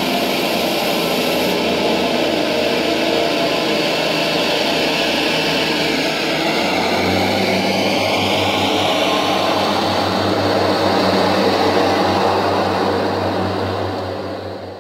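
Model Class 142 Pacer train running on the layout: a steady, engine-like drone that grows stronger about seven seconds in, with a faint rising whine through the middle.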